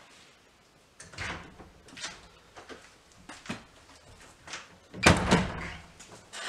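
Wooden double door with metal latches being worked and pushed open, with a few faint clicks and knocks, then a louder bang about five seconds in.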